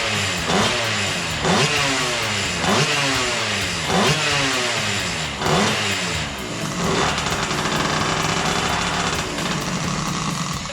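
Small 39cc two-stroke engine being revved in quick throttle blips about once a second, each one sharply up and then sliding back down. For the last few seconds it holds a steadier, higher speed.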